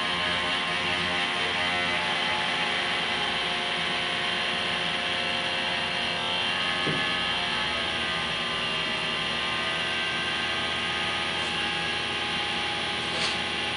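Laser Lissajous curve maker running: a steady whirring hum made of several tones. Its pitch shifts between about six and eight seconds in, as the projected pattern changes, and there is a short tick near the end.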